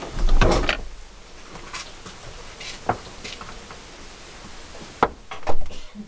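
Clunks and knocks of someone climbing out of a pickup truck's cab: a loud low thump at the start, a few light clicks, then a sharp click and a thump near the end as the truck door is shut.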